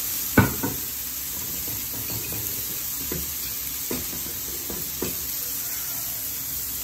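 Rice, chicken and egg sizzling in a frying pan, with a few sharp knocks of a utensil against the pan as it is stirred. The loudest knock comes about half a second in.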